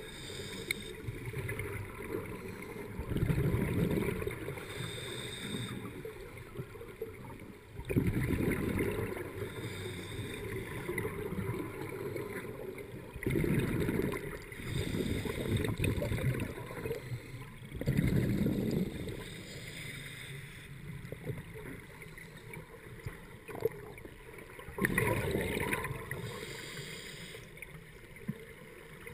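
Scuba divers' exhaled regulator bubbles, heard underwater through the camera housing: bubbly rumbling bursts about a second long, recurring every few seconds over a steady low hiss.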